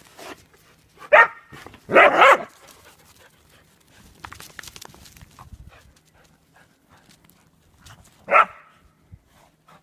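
Whippets barking in play: a sharp bark about a second in, a longer double bark just after it, and a single bark near the end.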